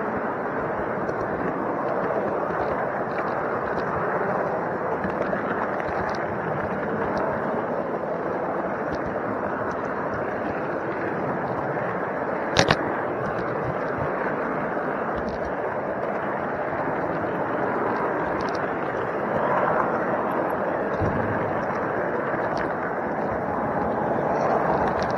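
Steady rolling rumble of a model train's wheels on the track, picked up close by a camera riding on a flat wagon, with a murmur of voices behind it. A single sharp click sounds about halfway through.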